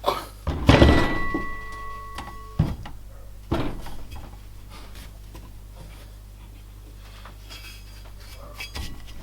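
A heavy metal clank just under a second in that rings on for about two seconds, followed by a few lighter knocks and handling clunks, then a few seconds with little but background hum.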